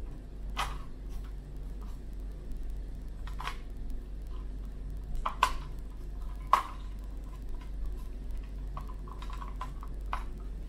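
Light plastic clicks and knocks as a Kyosho Mini-Z Overland Hummer H2 RC car is turned over and handled, its chassis and wheels tapping and clicking at irregular moments, with a few sharper clicks.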